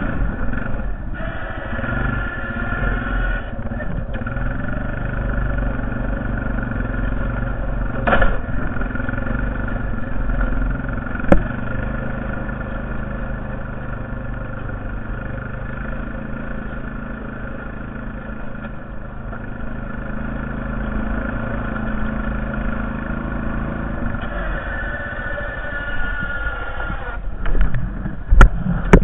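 Honda Foreman TRX450ES ATV's single-cylinder engine running steadily, with a sharp click about eleven seconds in and a few louder knocks near the end.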